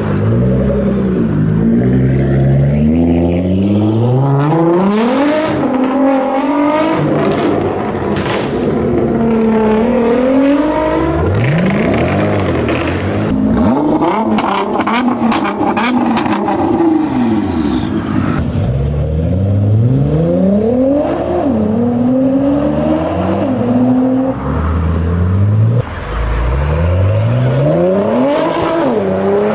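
Nissan GT-R engine revving hard again and again, its pitch climbing and dropping, with a quick string of sharp exhaust pops and bangs about halfway through.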